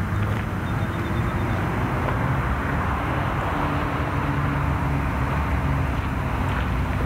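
Steady low rumble of a distant engine with a low hum, over an even outdoor hiss.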